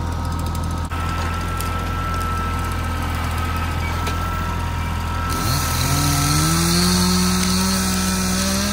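Kubota compact tractor's diesel engine running steadily, then revving up about five seconds in and holding the higher speed as the tractor pulls away.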